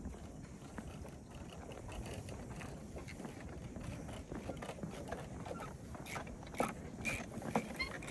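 Footsteps on a wooden treetop walkway, as irregular clicks and knocks that grow more frequent over the last couple of seconds, over a low steady rumble.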